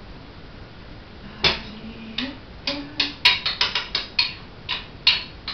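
Spoon clinking and knocking against a pan and bowl as porridge is served out: a fast, irregular run of sharp clinks starting about a second and a half in.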